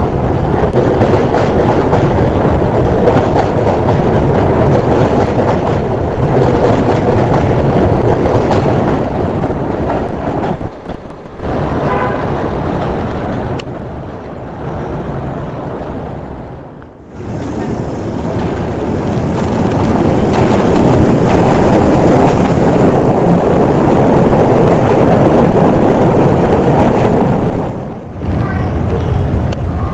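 New York City subway trains at open-air elevated platforms: a train running past close by, then trains approaching along the tracks, a loud, steady rumble of wheels on rails. The sound breaks off sharply three times and resumes.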